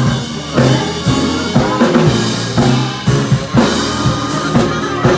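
Live soul band playing: a drum kit keeps a steady beat with kick, snare and rimshots over an electric bass guitar line.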